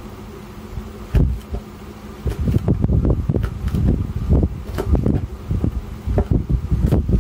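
Kitchen knife chopping spring onion stalks on a plastic cutting board: a single knock about a second in, then quick irregular chops several times a second from about two seconds in.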